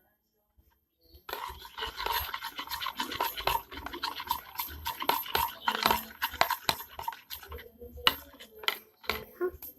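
A utensil stirring glue-based slime mixture in a bowl, with rapid clicking and scraping against the bowl. It starts about a second in and pauses briefly near the end.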